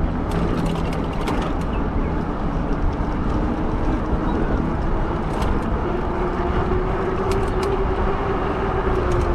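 Wind rush and road noise from a fat-tire e-bike riding along a street, with a faint steady hum that rises slightly in pitch in the second half and a few light ticks.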